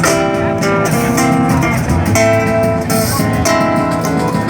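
Acoustic guitar strumming a samba accompaniment with no singing, chords struck in a quick, even rhythm.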